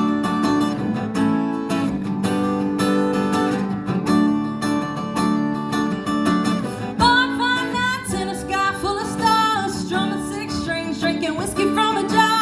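Acoustic guitar strumming a steady chord pattern in an instrumental break of a song. About seven seconds in, a higher melody line with sliding, bending pitch comes in over the strumming.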